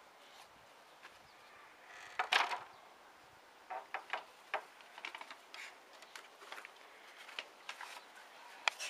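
Wooden lattice gate knocking shut about two and a half seconds in, followed by a series of light wooden knocks and clicks as the gate is rattled.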